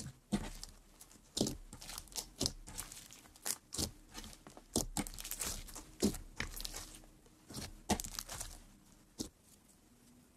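Crunchy slime crackling and popping as fingers press and squeeze into it: a rapid, irregular series of sharp crackles that stops about nine seconds in.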